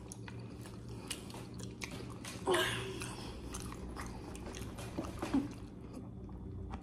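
People chewing and biting food close to the microphone: scattered small wet clicks and smacks of eating, with a brief murmur from a voice about two and a half seconds in.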